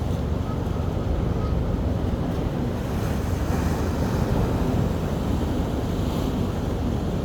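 Ocean surf washing onto a beach in a steady rush, swelling a little midway, with wind buffeting the microphone.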